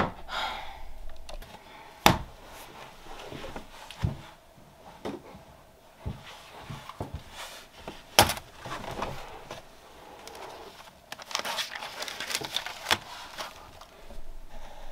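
Desk handling sounds: a few sharp knocks a couple of seconds apart as things are set down, the loudest when a spiral notebook lands on the desk, then paper rustling as its pages are turned open near the end.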